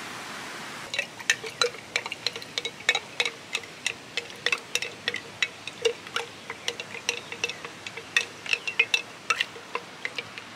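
Wooden spoon stirring in a glass mason jar of warm lavender tea, tapping and clinking rapidly and unevenly against the glass to dissolve honey. A steady hiss comes first, and the clinking starts about a second in.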